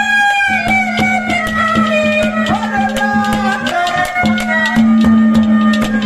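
Haryanvi ragni folk music: a melody line over a held low note, with a quick, steady hand-drum beat.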